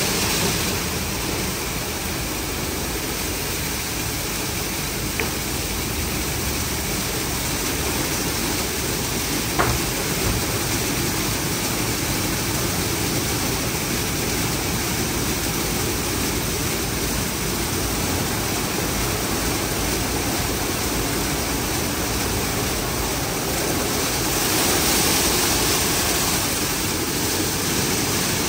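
Steady rush of water spray in a WashTec SoftCare2Pro rollover car wash running its wash cycle on a car, with two brief clicks about 5 and 10 seconds in. The spray hiss swells louder for a few seconds near the end.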